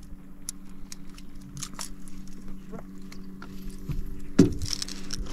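Honda 30 hp four-stroke outboard running steadily at low trolling speed, a low even hum, with scattered light clicks and jangles of gear being handled in the boat and one brief louder sound about four and a half seconds in.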